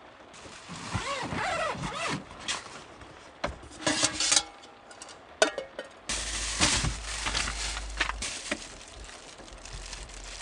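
Objects being handled at close range: irregular rustling with scattered clicks and knocks, and a low rumble from about halfway through.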